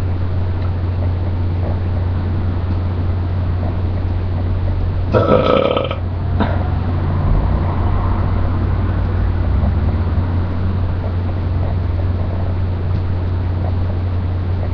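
A person belches once, a short pitched burp of under a second about five seconds in, over a steady low hum and hiss.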